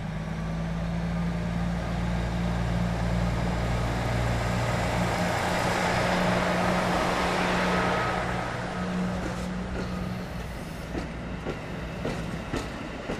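KiYa 95 series diesel track-inspection train running slowly past close by: a steady diesel engine hum with wheel and rail noise that swells as the cars go by, then the wheels clicking over the rail joints in the last few seconds.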